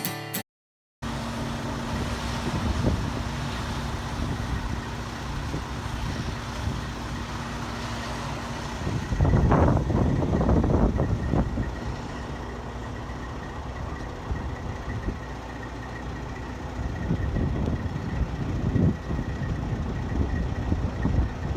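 Heavy vehicle engines running steadily, with a faint constant hum over the rumble; the rumble grows louder for a few seconds about nine seconds in.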